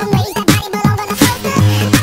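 Electronic dance music with a steady, driving drum beat and a deep held bass note.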